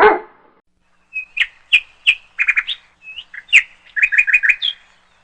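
A songbird chirping: short, high single chirps and quick clusters of three or four notes, with a pause between phrases. A loud dog bark cuts off at the very start.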